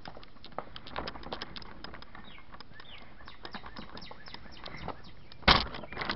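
Irregular light clicking and rattling from an RC car carrying a small camera as it rolls over asphalt, with a few faint bird chirps. Two loud knocks come near the end.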